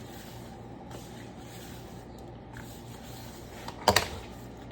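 Hands rubbing seasoning into raw chicken: quiet rubbing and handling over a low steady hum, with a sharp double knock about four seconds in.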